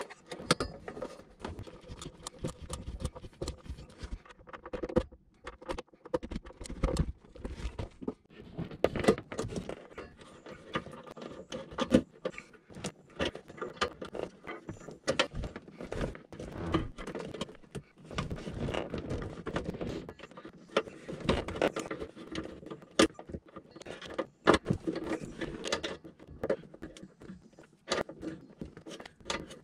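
Small metal hand-tool noises: an Allen key and screws clicking, rattling and scraping against a converter-charger's metal case and terminal block as wire terminals are tightened down, in irregular taps with brief pauses.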